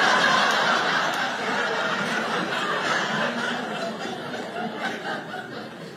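Audience laughing, the laughter loudest at first and dying away over several seconds.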